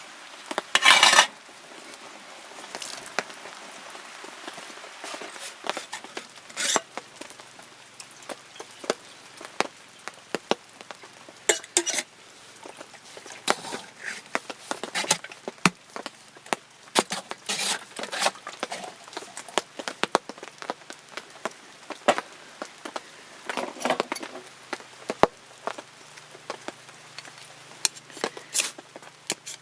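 Camping gear being handled: irregular light clinks and knocks of small objects, with a louder rustle about a second in and a few more later.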